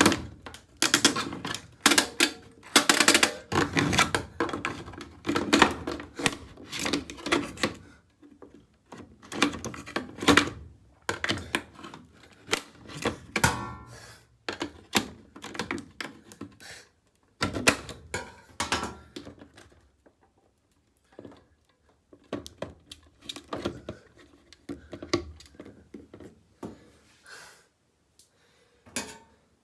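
Scissors prying and knocking at an old washing machine's plastic control dial: a long run of fast, irregular clicks, rattles and thunks, densest in the first eight seconds, then coming in shorter spells with brief pauses.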